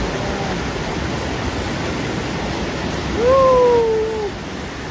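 Rushing white-water rapids of a mountain river. About three seconds in, a drawn-out shouted call rises and then slides slowly down in pitch for about a second, standing out over the water.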